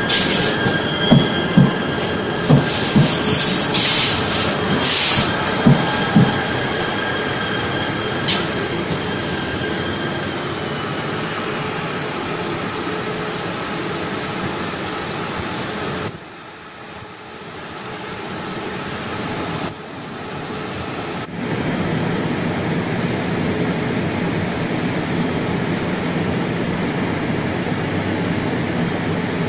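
KTM ETS electric train rolling past close by, its wheels clacking over rail joints several times in the first few seconds with a thin steady whine. Steady electric train running noise follows, with a quieter break a little over halfway.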